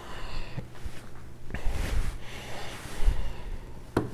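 Handling noises as a whetstone is set out on the bench: rustling and scraping with a few light knocks.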